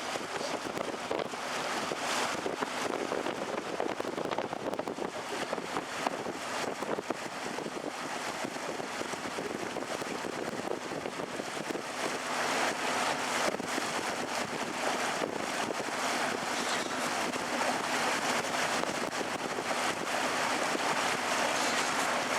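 Canal tour boat under way: a steady low motor hum under the wash of water, with wind buffeting the microphone in irregular crackles. It grows somewhat louder about halfway through.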